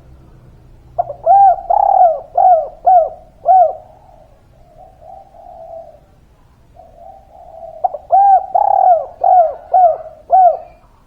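Spotted dove (tekukur) cooing: two loud song phrases, each a quick run of five or six arched coos, with softer, lower cooing between them.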